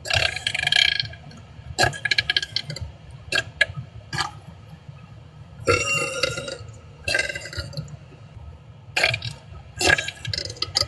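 A person belching over and over: about six loud burps in a row, some long and rattling, with a few short clicks between them.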